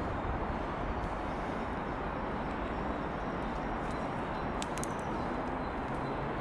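Steady outdoor background hum of an urban park, with faint bird chirps and a few small clicks about three-quarters of the way through.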